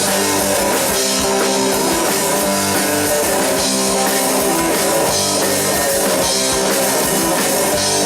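Rock band playing an instrumental passage: electric guitar with bass and drum kit, steady and loud, with no singing.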